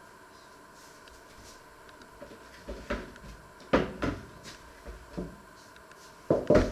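Kitchen handling noise: a run of knocks and clatters, the loudest about halfway through, then two sharp knocks close together near the end.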